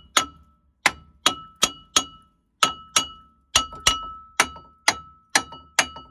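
Hammer blows on a 2010 Ford Fiesta Mk7's rusted-on front brake disc: about a dozen sharp strikes, roughly two a second, each leaving a short metallic ring. The disc is rusted onto the hub and is being knocked free by hitting its back on either side.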